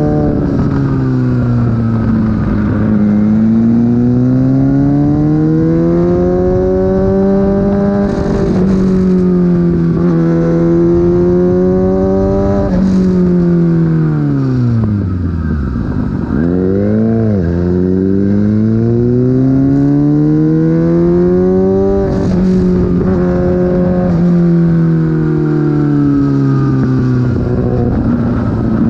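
Sport motorcycle engine under hard riding: it climbs in pitch through the gears, dropping sharply at each upshift, three times. About halfway through it falls to a low note as the bike slows, with a quick rev on a downshift, then pulls up again.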